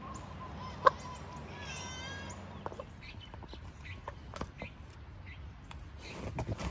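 A bird calls twice in the first couple of seconds, a held note and then a wavering one, with a sharp click between. Then a dog gnaws on a dry coconut husk: irregular crunching clicks and scrapes that grow busier near the end.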